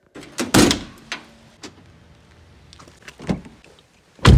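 Knocks and clunks of someone settling into a car, then a loud thump near the end as the driver's door is pulled shut.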